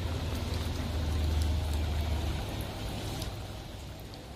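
Low engine rumble of a vehicle that fades out about two seconds in, over a steady hiss of rain falling on standing floodwater.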